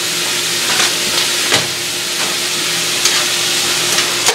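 Onion and green pepper sizzling in oil and Worcestershire sauce in a cast-iron skillet, steady throughout, with a few light clicks as they are stirred.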